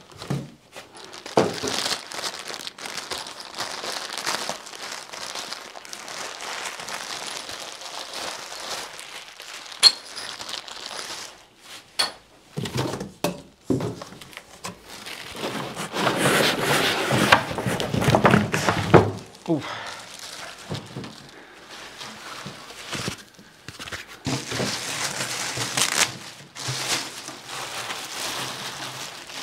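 Plastic packaging crinkling and rustling as a drum is unpacked from its cardboard box, loudest about halfway through, with a few short knocks.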